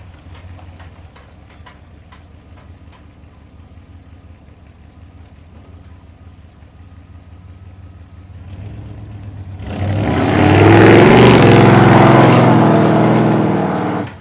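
Dodge D200 pickup's 318 V8 running low and steady, then about eight seconds in it swells into a loud, hard-accelerating run that cuts off suddenly at the end.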